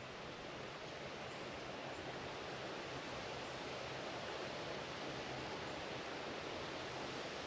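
Steady, even outdoor hiss with no distinct events, the kind of rushing background noise that wind or moving water makes.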